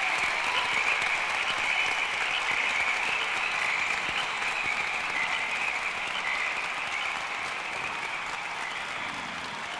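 Crowd applauding, a dense, even clapping that slowly fades.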